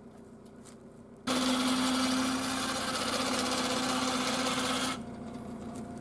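Electric hoist motor of a vehicle-mounted hive-lifting crane running as it raises a beehive, starting suddenly about a second in and stopping shortly before the end; it hums steadily with one strong tone. The truck's engine idles underneath.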